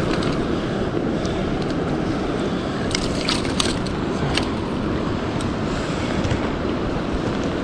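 Rushing water of a swollen, high creek: a steady rush of flow, with a few short sharp clicks or splashes about three to four and a half seconds in.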